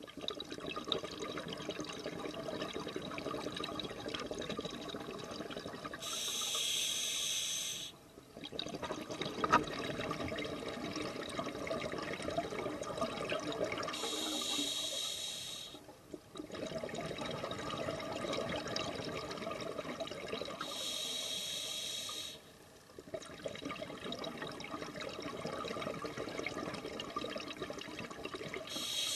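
Scuba regulator breathing heard underwater. A hissing draw on the demand valve lasting about two seconds comes roughly every seven or eight seconds, four times. Between draws, long exhalations send crackling streams of bubbles out of the exhaust valve.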